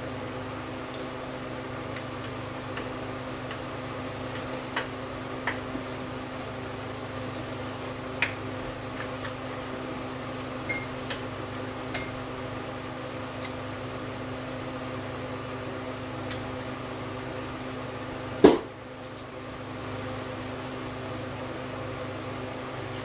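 Hand tools clicking and tapping on metal while the water pump hose clamps are being loosened, with one louder clank about eighteen seconds in. A steady hum runs underneath.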